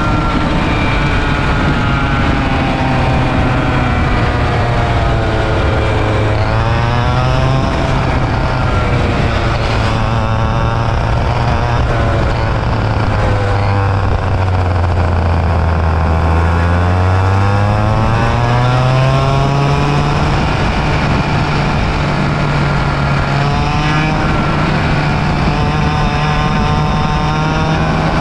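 Onboard sound of a 100cc two-stroke kart engine running hard, its buzzing note steady at high revs. The pitch drops off briefly about six seconds in, falls lower for longer around the middle, then climbs back up as it comes back on the throttle.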